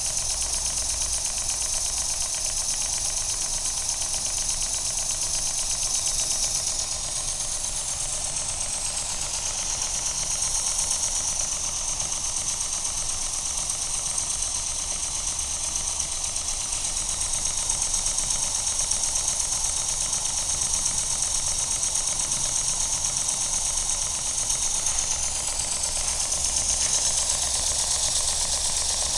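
Danni #1 model horizontal steam engine, built from a Bengs kit, running fast on steam from a small horizontal boiler. It gives a rapid, even run of ticking exhaust beats over a steady steam hiss.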